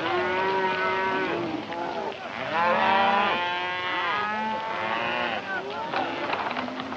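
Many cattle lowing and bawling over one another, the calls overlapping, loudest about halfway through.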